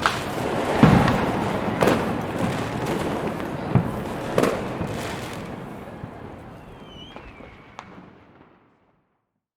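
Fireworks bursting, several sharp bangs over a dense crackle, then fading out to silence near the end.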